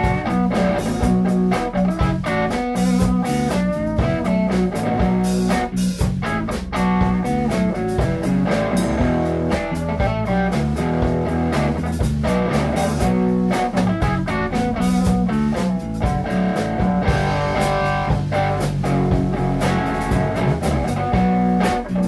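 Guitar-led instrumental background music with drums and a steady beat.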